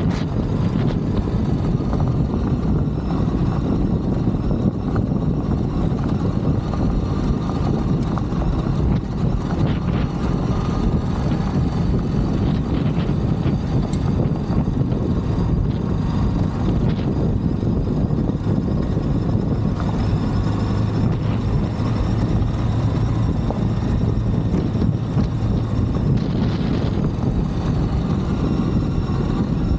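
Ducati DesertX's 937 cc L-twin engine running steadily as the motorcycle rides a gravel track, mixed with wind rush on the microphone.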